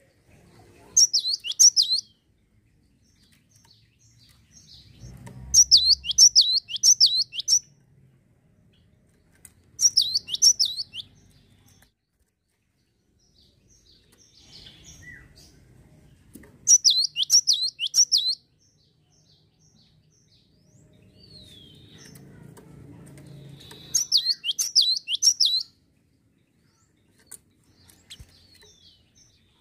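Cinereous tit singing: five bursts of quick, sharp, repeated high notes, each burst a second or two long, with pauses of several seconds between them.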